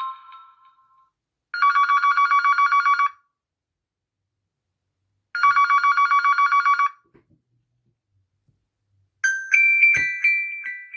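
Huawei P30 Lite smartphone ringtones playing through the phone's loudspeaker. A marimba-like melody fades out at the start. Then a trilling, telephone-bell-style electronic ring sounds twice, each burst about a second and a half long and about four seconds apart, and a different chiming melody begins near the end.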